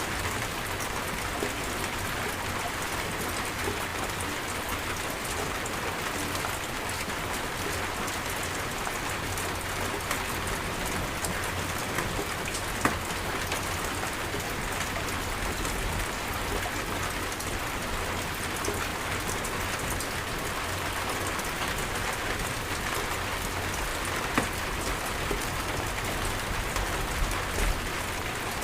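Steady rainstorm: rain pouring down in an even hiss, with a few sharper single drop hits standing out, one about 13 seconds in, another about 24 seconds in and a couple more near the end.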